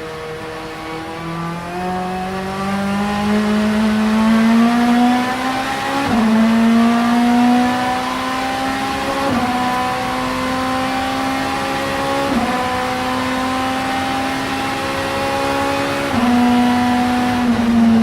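Vauxhall Vectra Super Touring race car's two-litre engine running hard under acceleration. Its pitch climbs steadily and dips sharply with each of about four quick gear changes, and it gets louder near the end.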